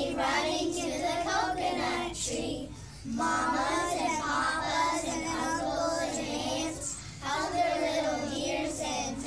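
A group of young children singing together in unison, with a brief pause about three seconds in.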